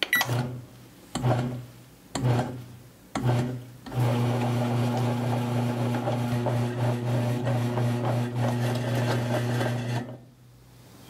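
Bread machine's kneading motor turning its paddle through flour and water to form dough: four short bursts about a second apart, then a steady hum for about six seconds that stops near the end.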